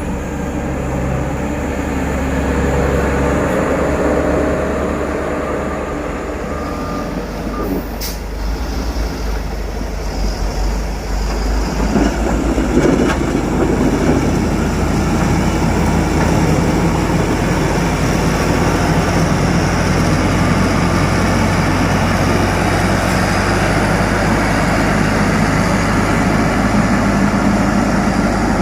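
Diesel engines of heavy road-building machinery running steadily. The sound grows louder about twelve seconds in, and a short click comes about eight seconds in.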